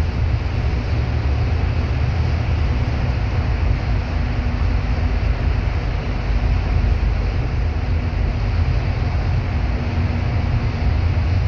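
Steady engine and road noise inside a moving bus, with a deep rumble and a faint steady hum.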